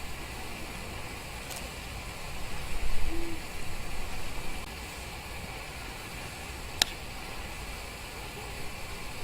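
A single short, low hoot about three seconds in, like an owl's call, over a steady hiss with a brief rumble of wind on the microphone. A sharp click comes near the end.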